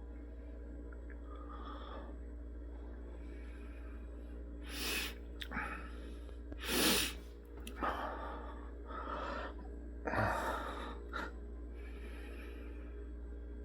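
A person gasping and sneezing: a run of short, sharp breathy bursts, the loudest about seven seconds in and another strong one about ten seconds in, over a steady low hum.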